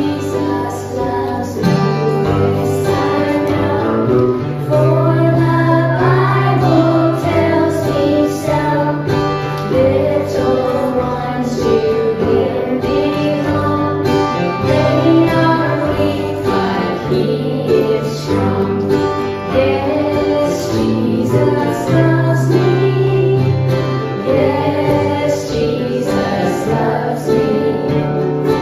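Children's choir singing a hymn, accompanied by a strummed acoustic guitar and another plucked string instrument.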